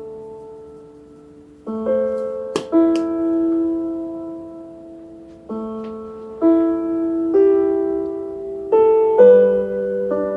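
Background music: soft, slow piano chords, each struck and left to fade before the next. A single sharp click cuts through about two and a half seconds in.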